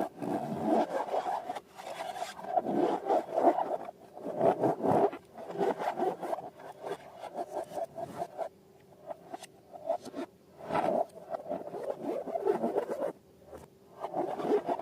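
Slime and balloons being handled and worked by hand: irregular rubbing, scraping and crackling in uneven bursts, with brief pauses.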